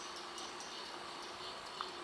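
Faint outdoor ambience: short high chirps every few tenths of a second over a steady low hum, with one sharper tick near the end.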